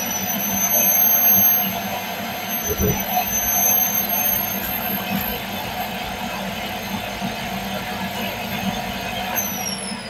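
Miele Tango Plus 1800 canister vacuum cleaner running with a steady high-pitched whine. About nine seconds in the motor is switched off, and its whine falls in pitch as it spins down.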